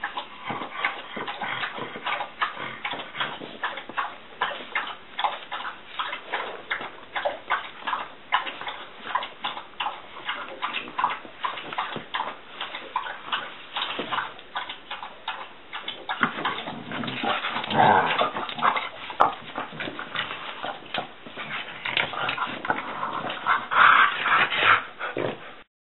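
French bulldog making a run of quick, short noises at another dog during play, louder about two-thirds through and again near the end.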